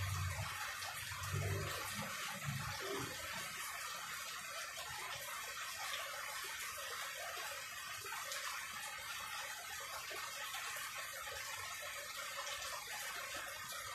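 Steady rain falling, an even hiss. A low rumble underneath fades out about three seconds in.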